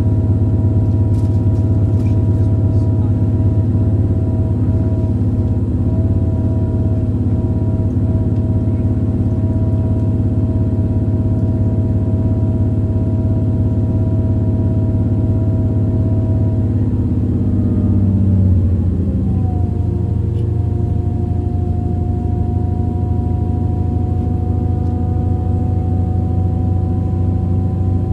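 Running noise of a regional express train heard from inside the passenger coach: a steady low rumble with a droning drive tone over it. About 18 seconds in, the drive tone falls in pitch, then settles into a new tone that slowly climbs.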